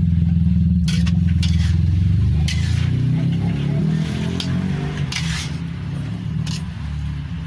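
A loud, low, engine-like rumble that fades after about three seconds, with a few sharp scrapes and clicks of a spatula stirring in a pan.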